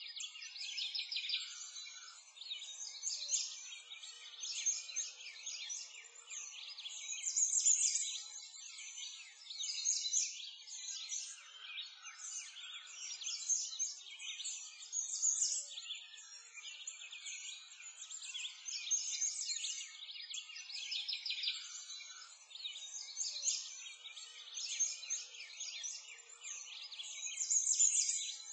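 Many small birds chirping and twittering together, a dense chorus of overlapping high calls that swells and fades every few seconds.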